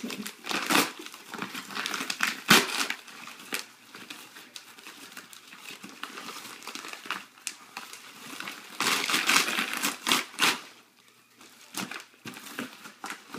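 A yellow paper padded mailer being pulled and torn open by hand: irregular paper crinkling and crackling, with louder bursts about a second in, at about two and a half seconds, and again from about nine to ten and a half seconds.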